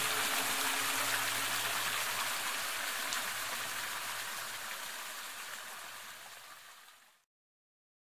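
Water flowing and splashing over rocks in a garden stream, a steady rushing that fades away and cuts to silence about seven seconds in.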